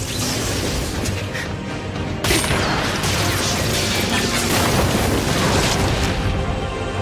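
Background music mixed with dense fight sound effects from an animated battle, booms and crashes; a sudden loud hit comes a little over two seconds in and the din stays loud after it.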